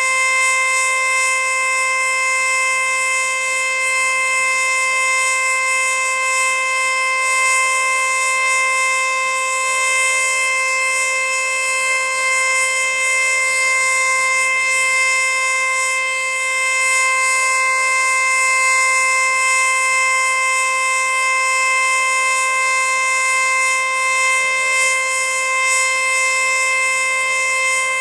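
Federal Signal Eclipse-NH electromechanical warning siren sounding its full-alert signal: a loud, steady tone held at one pitch, with no rise or fall.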